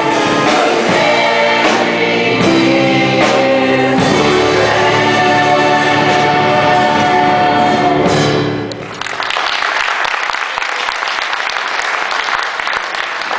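Stage cast singing together with a rock band, ending on long held notes about eight seconds in. Audience applause follows.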